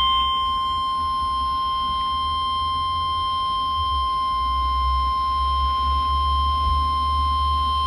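NOAA Weather Radio 1050 Hz warning alarm tone: one steady unbroken tone, sent as the weekly test of weather-alert receivers, with a low hum beneath it.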